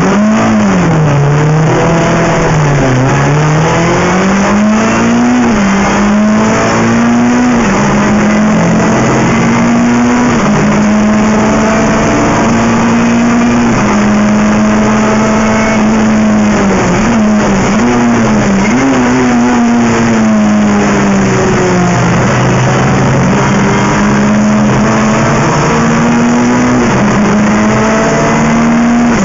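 Renault Clio III Cup race car's 2.0-litre four-cylinder engine, heard from inside the cockpit, pulling hard away from the race start. The pitch climbs and drops sharply with each upshift several times in the first seconds, then holds at high revs. Later it drops and climbs again a few times as the car brakes and changes gear.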